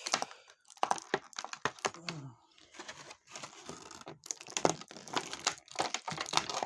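Irregular crinkling and clicking of plastic as an action figure and its small accessory parts are handled.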